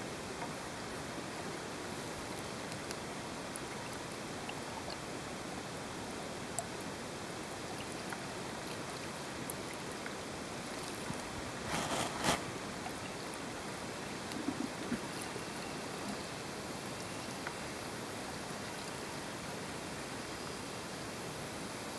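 Steady hiss of underwater ambience, with scattered faint ticks and one short louder rustle about twelve seconds in.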